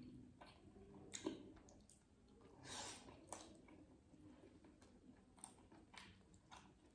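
Faint eating sounds: quiet chewing of chicken momos, with scattered small clicks and taps.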